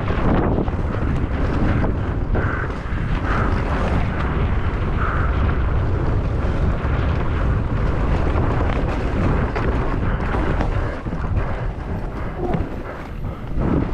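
Wind buffeting the rider's on-board camera microphone, mixed with the rumble and rattle of a mountain bike descending at race speed. The noise is loud and steady.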